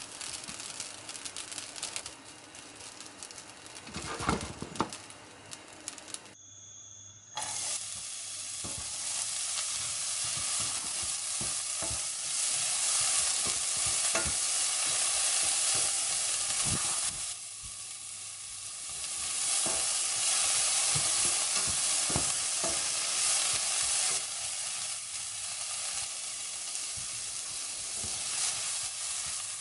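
A spatula stirring and scraping rice and egg in a nonstick frying pan. After a short break, diced carrots sizzle in hot oil as the spatula pushes them around, and the sizzling runs on as sliced shiitake mushrooms are stirred in near the end.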